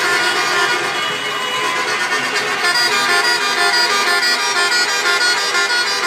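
Many car horns honking at once in street traffic, a steady wall of overlapping held tones that shift in pitch about three seconds in.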